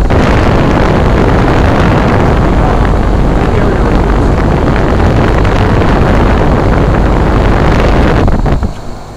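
1996 Carrier 5-ton straight-cool condensing unit running, its condenser fan's discharge air rushing loudly over the microphone. The rush drops away sharply near the end.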